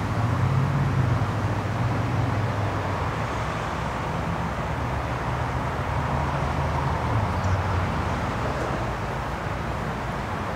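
Steady city background noise: a low rumble of road traffic under a constant hiss, a little louder in the first few seconds and again about two-thirds of the way through.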